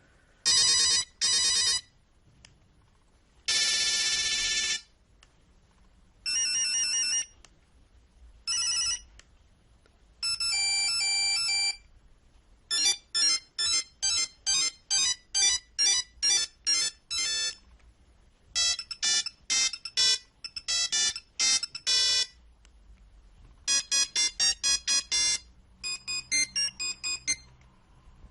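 Nokia 3310 monophonic ringtones played one after another, each a short electronic melody of beeps with a pause before the next. They start with quick double beeps and a longer held tone, and from about halfway through the tunes become faster runs of rapid beeps.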